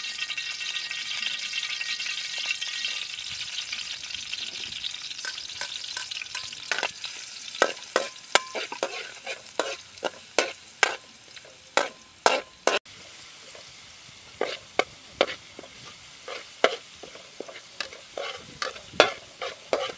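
Chopped garlic frying in oil in a metal wok, sizzling loudly for the first few seconds and then fading. After that, a slotted metal ladle scrapes and clanks against the wok as the garlic is stirred, about one to two strokes a second.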